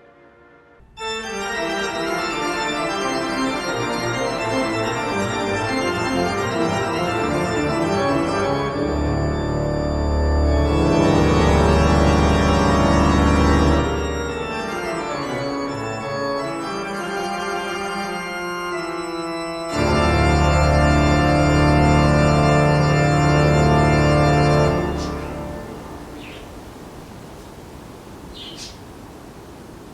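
Organ music: sustained minor-sounding chords that enter about a second in, twice swelling louder over deep held bass notes, then dying away near the end.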